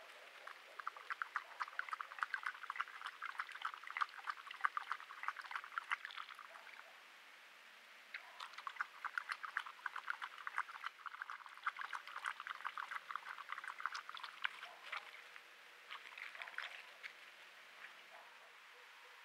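Coyote lapping water from a bowl: a long run of rapid wet laps, a pause of about a second and a half, then a second long run and a short last bout that stops a couple of seconds before the end.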